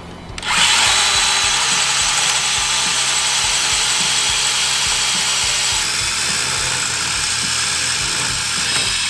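Cordless portable band saw cutting through the metal top tube of a Harley-Davidson Sportster frame. It starts cutting about half a second in and runs on as a steady, high-pitched cutting noise.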